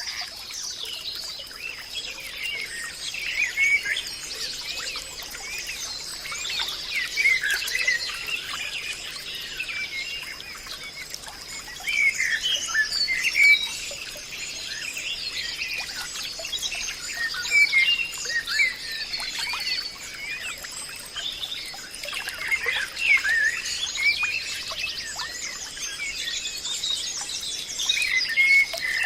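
Several songbirds chirping and singing over one another in forest ambience, with a steady high-pitched tone running beneath them.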